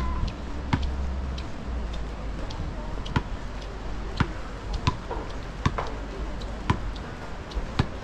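Footsteps on a paved promenade: sharp slaps, roughly one a second but unevenly spaced, over a low rumble.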